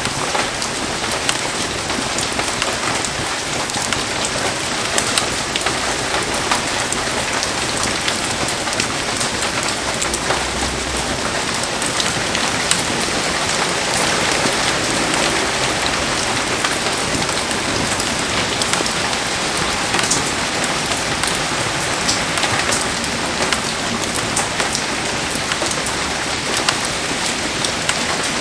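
Heavy rain falling steadily: a dense even hiss with many sharp drop taps.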